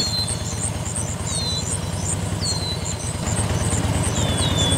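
Small engine of a DIY mini tractor running steadily, with its rapid firing pulses. A high, falling chirp repeats every second or so over it.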